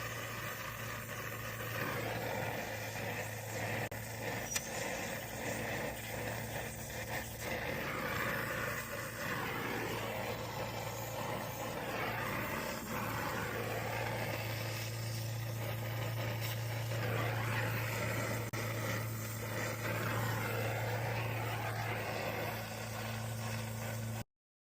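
Brazing torch flame burning with a steady rushing hiss over a constant low hum; the sound cuts off abruptly near the end.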